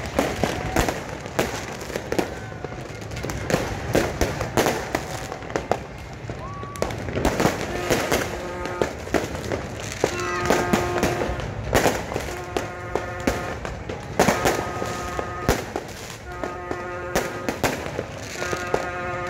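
Fireworks popping and banging in rapid, irregular succession. From about eight seconds in, music with steady held notes plays over them in repeated phrases.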